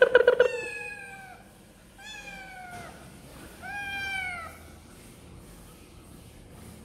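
Young cats meowing, as if begging for food. It opens with a loud, wavering cry, the loudest sound here, followed by three separate meows that fall in pitch, about half a second, two seconds and four seconds in.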